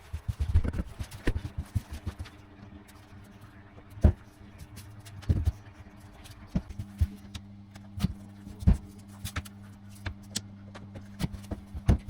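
Laminate floorboards being laid and clicked together: irregular knocks, taps and clatter of the boards on the floor, with a few louder knocks, over a low steady hum.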